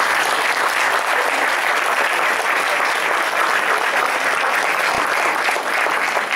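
Audience applauding steadily at the end of a children's song, with a low held note dying away about a second and a half in.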